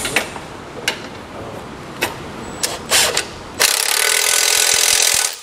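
A compact cordless impact wrench runs for nearly two seconds, starting a little past halfway, tightening a bolt on a tow bar base plate. Before it starts there are a few light clicks and knocks as the tool is fitted onto the bolt.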